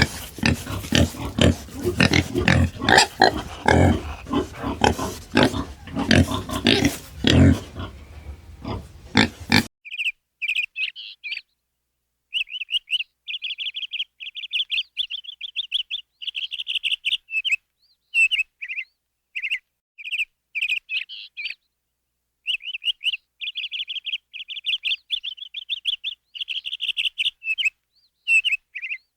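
Loud, rough animal noises for about ten seconds, cut off suddenly. Then a bird's rapid high chirping in quick runs with short pauses.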